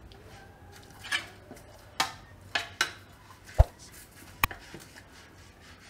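A metal cake tin being greased with ghee using a silicone brush: a handful of scattered light clicks and knocks of brush and tin, the loudest about three and a half seconds in.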